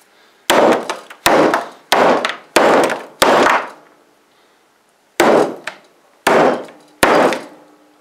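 Claw hammer blows on a plastic McFarlane Spawn action figure lying on a wooden workbench. There are eight sharp whacks in all, five in quick succession about two-thirds of a second apart, then, after a short pause, three more. Each dies away within about half a second.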